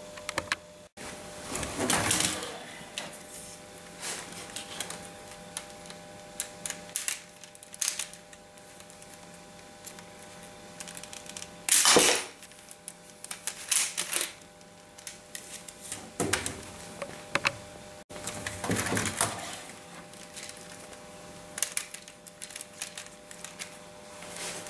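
Plastic clicks and rattles of a Lego brick model gun being handled, in scattered clusters, with one sharp snap about twelve seconds in.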